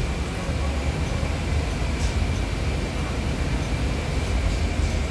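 City transit bus running, heard from inside the cabin: a steady low rumble of engine and road, with a faint steady high whine.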